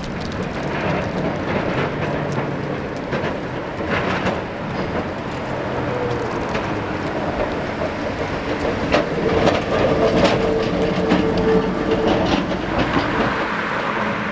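Gotha two-axle tram from the 1950s passing on street track, its wheels clattering over rail joints and points. A steady high whine joins in for a few seconds past the middle.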